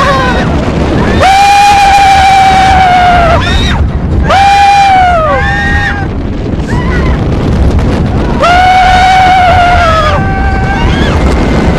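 Roller coaster riders screaming: three long held screams that drop in pitch as they end, with shorter cries between, over a steady low rush of wind and ride noise.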